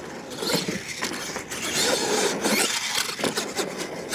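A 4x4 R/C monster truck driving on a dirt track, its small motor whining up and down in pitch with the throttle over the hiss of tyres on dirt.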